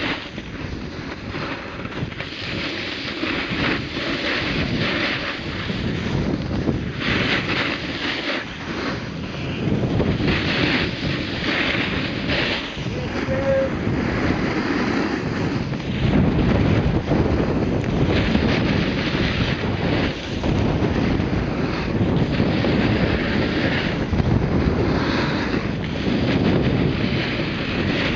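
Wind buffeting the microphone while moving fast downhill, mixed with edges scraping over packed snow; the rushing noise is uneven and gets louder about halfway through.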